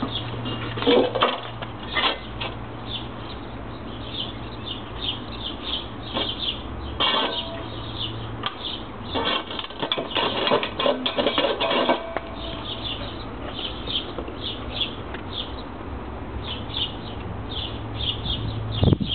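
A puppy knocking a stainless steel water bowl about on concrete paving slabs: irregular metal clatters and scrapes, busiest in the first couple of seconds and from about six to twelve seconds in.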